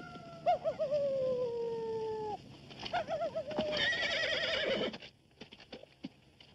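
Horse whinnying: wavering calls that fall in pitch, the loudest about four seconds in, followed by a few light clicks.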